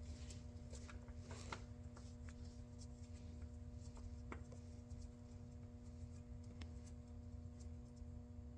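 Faint scattered clicks and light handling noises as hands work a UTV's gear shifter linkage back into place, over a steady low hum.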